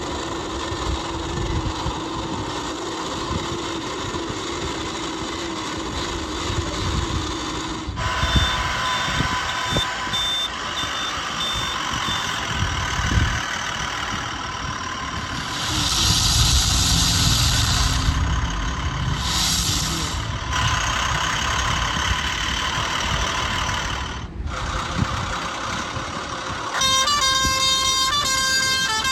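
Edited run of truck sound effects: engine noise with horn-like held tones, switching abruptly several times. Near the end it turns into a quick run of stepped electronic tones.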